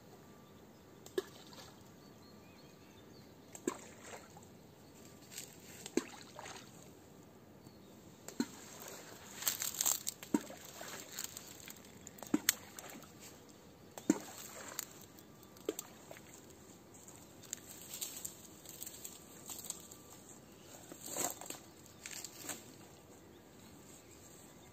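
Groundbait being thrown into the river near the bank: short plops and small splashes in the water, repeated at irregular intervals, about fifteen in all.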